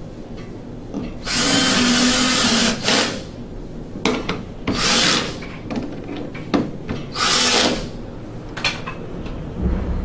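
Cordless drill/driver running in three spurts, a long one of about a second and a half and then two short ones, driving screws that fasten a condensate trap to a gas furnace's sheet-metal cabinet.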